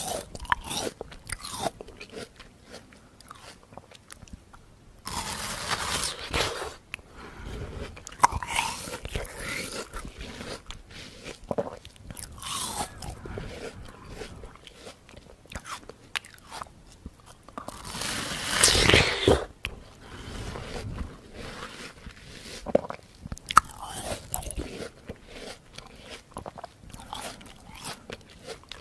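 A person biting into and chewing watermelon: a run of crunching bites and chewing, with the loudest crunch about two-thirds of the way through.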